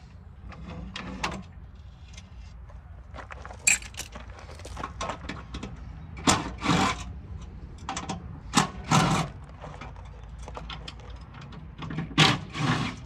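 Cordless impact driver running in short bursts, about four in all, backing fasteners out of cast-metal parking lot light housings, with small metal clinks of parts between the bursts.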